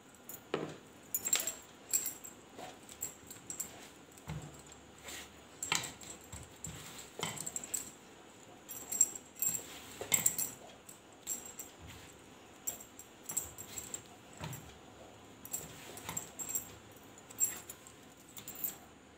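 Hand kneading a dough of soaked flattened rice, potato and wheat flour in a steel plate, with irregular light clinks and taps against the metal.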